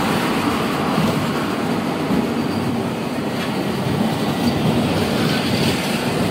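Small open-air tourist train running along its elevated steel track, a steady rumble and rattle of its wheels on the rails.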